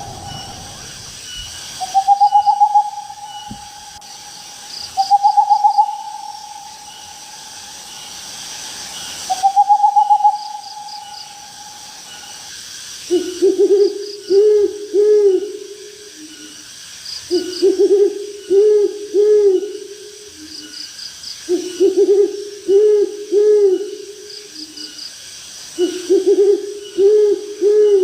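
Owl hooting: first three long drawn-out hoots, then from about halfway repeated bursts of quick hoots, a group every four seconds or so. A faint steady chirring of night insects runs underneath.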